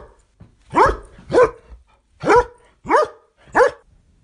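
A dog barking: about six short barks, each rising slightly in pitch, roughly half a second to a second apart.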